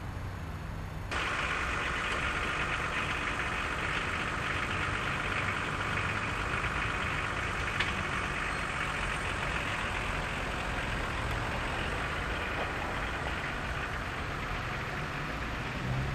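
Volvo (VW) D24 inline-six diesel engine of 60 kW running steadily with diesel clatter, coming in abruptly about a second in.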